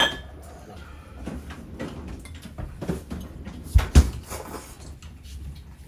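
Household knocks and clatter: a sharp clack at the start, then small knocks and two heavy, deep thuds close together about four seconds in.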